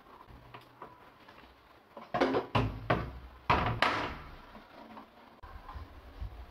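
Several knocks and bumps in quick succession, starting about two seconds in, from household objects being handled in a kitchen.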